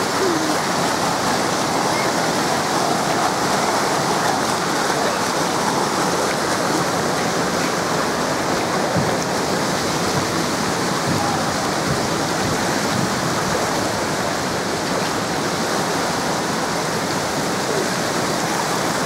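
Steady rush of water pouring and splashing from water-park play features, an even, unbroken sound.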